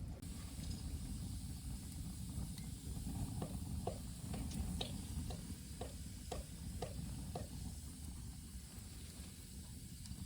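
Wood campfire crackling and popping, a dozen or so small sharp snaps, over a steady low rumble of wind on the microphone.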